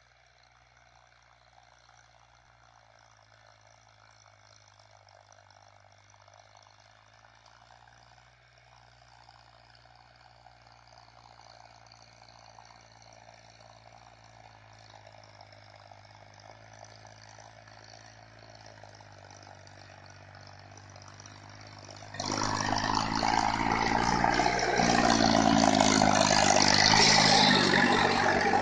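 Tractor engine running steadily while ploughing, slowly growing louder as it comes nearer, then suddenly much louder and rougher about three-quarters of the way through.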